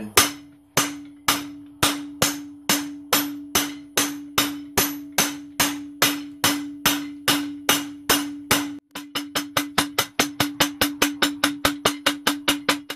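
Hand hammer striking the top die of a guillotine tool with rounding dies, forging hot square steel stock round. Sharp metallic blows about two a second, then quicker, about five a second, over the last four seconds, each one ringing the tool with a steady tone.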